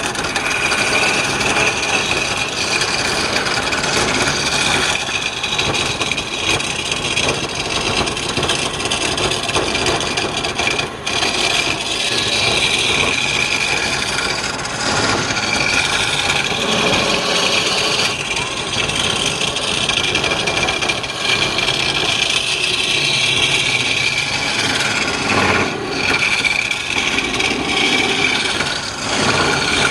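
A turning tool cutting into wood spinning on a lathe: a continuous scraping, rasping hiss with a steady whine underneath.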